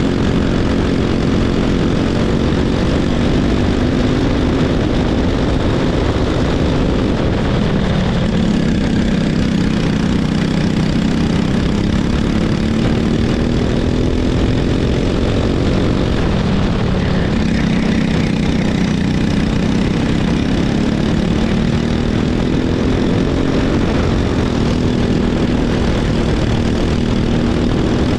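Racing kart engine running hard under the seat. Its pitch dips twice, once about a quarter of the way in and again just past the middle, as the driver comes off the throttle, and each time it climbs slowly back up as the kart accelerates.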